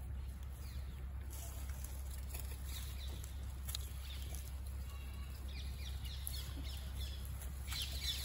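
Short high-pitched chirping calls, scattered through and thickest near the end, over a steady low rumble.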